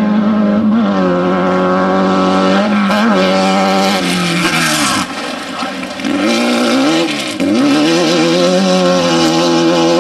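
Off-road desert race vehicle's engine running hard at steady high revs, with short blips in pitch. About five seconds in the revs and loudness drop away, with a rushing noise, then climb back and hold high again.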